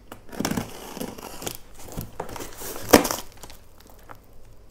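Box cutter slicing through packing tape on a cardboard box, then the tape tearing and the cardboard flaps crinkling as they are pulled open, with one sharp crack about three seconds in.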